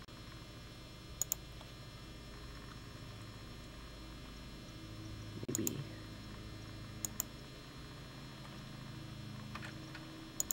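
Computer mouse clicks, each a quick press-and-release pair, about four times over a low steady hum, with a brief low sound about halfway through.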